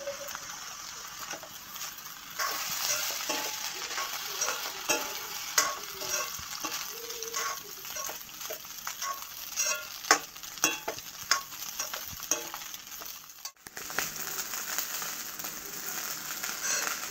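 Fried rice sizzling in a stainless steel wok over a gas flame while a metal spoon stirs and scrapes it, with frequent sharp clinks of the spoon against the pan.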